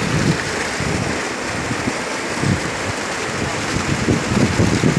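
Water gushing steadily into a masonry bathing tank and churning its surface: a constant rushing, splashing noise, with low gusty rumbles now and then, loudest near the end.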